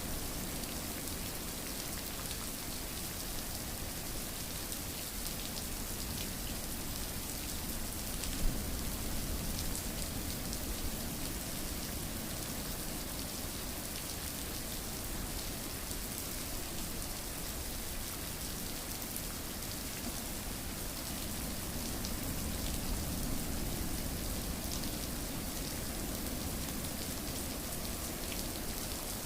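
Steady rain falling, an even hiss of drops on a surface with fine scattered drop ticks. One sharp tick stands out about eight seconds in.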